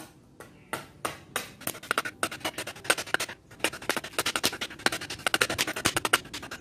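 Butcher knife chopping into a wooden ladle blank: a series of sharp wooden knocks, a few at first, then quickening to about six a second.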